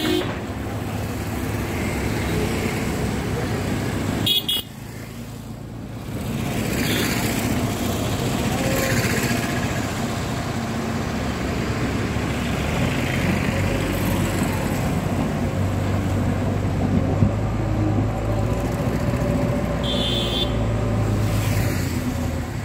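Road traffic with motorcycle and car engines passing and two short horn toots, one about four seconds in and one near the end, over the steady running of a JCB backhoe loader's diesel engine.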